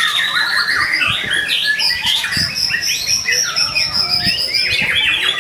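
White-rumped shama (murai batu) singing a fast, unbroken song of loud whistles, chirps and rapid trills, used as a lure recording to set other shamas singing.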